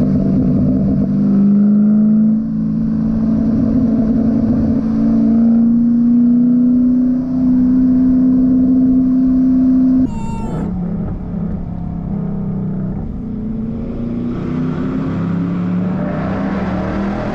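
2012 Mustang Boss 302's 5.0-litre V8 pulling under acceleration, its exhaust note climbing steadily in pitch for about ten seconds. It then drops suddenly as the throttle closes, with a brief sharp clatter, and settles into a lower, steady note.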